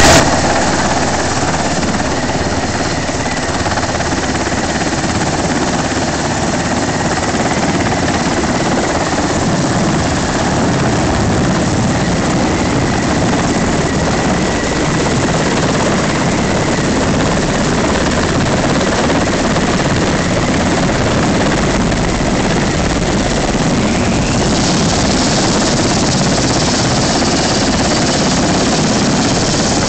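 Helicopter rotor and turbine engines running loud and steady as it comes in, hovers and sets down on a ship's flight deck, with a faint steady whine. A brighter hiss comes up about 24 seconds in.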